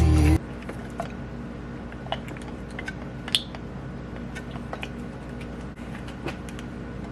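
A music track cuts off just after the start. After that, scattered light clicks and taps from handling small parts sound over a steady low hum.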